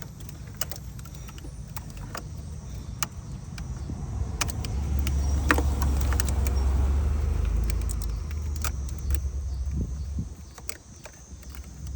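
Light plastic clicks and rattles of a cooling fan wiring connector being handled and worked into place. Under it, a low rumble swells in the middle and fades about ten seconds in.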